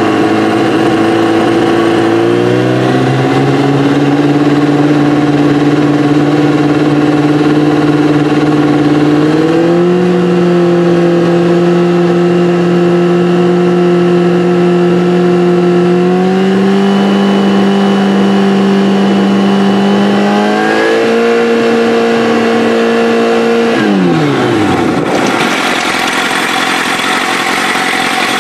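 Kawasaki ZX-7R's inline-four engine on Keihin FCR flat-slide carburettors, run on a stationary bike and held at steady speeds from about 2,000 to about 5,000 rpm, raised in four steps with each speed held for several seconds. Near the end the throttle is released and the engine falls back to idle.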